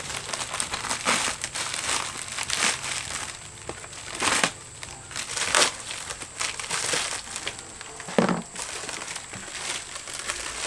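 Plastic poly mailer bag crinkling and rustling in irregular handfuls as it is cut open with a knife and pulled apart.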